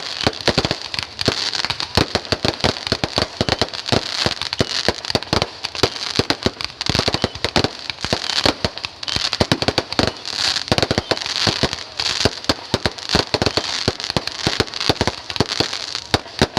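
Fireworks going off in a rapid, continuous string of sharp pops and cracks, several a second, over a steady hiss.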